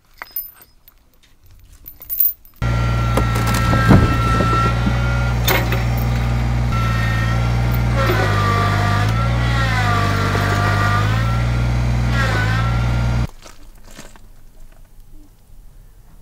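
A few faint chain clinks, then a compact tractor's engine runs hard under load for about ten seconds, its pitch wavering as it strains to drag a shed on a chain. The engine sound cuts off suddenly near the end.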